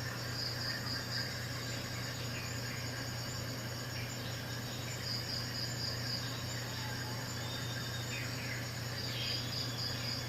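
Insects, likely crickets, chirping in short high groups of about four pulses every few seconds, over a steady low hum.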